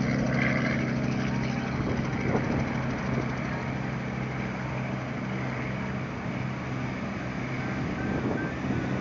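Small helicopter's rotor and engine drone, steady in pitch and slowly fading as it climbs away after lift-off.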